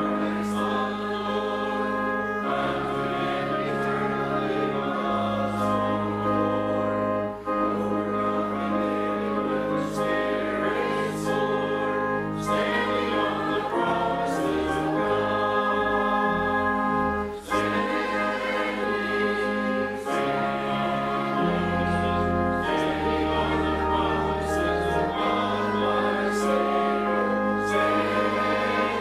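A hymn sung by a choir over sustained accompaniment chords, with a bass line that moves from note to note every second or two.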